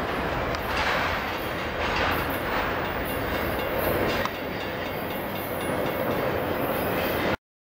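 Freight cars of a long train rolling past, steel wheels clacking at intervals over rail joints. The sound cuts off suddenly near the end.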